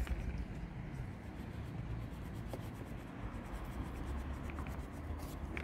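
Faint scratching of a small screwdriver tip against the plastic rope pulley of a chainsaw's recoil starter, prying out the old starter rope, with a few light clicks.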